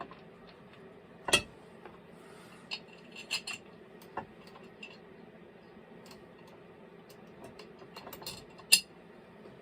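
Metal hand tools and small parts clinking and knocking on a workbench during work on a chainsaw. There are a handful of sharp clicks and clacks, the loudest about a second in and another near the end.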